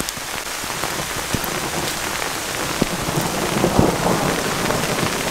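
Heavy rain falling steadily, with scattered sharp ticks of drops striking close by. A roll of thunder swells up in the low end about three and a half seconds in.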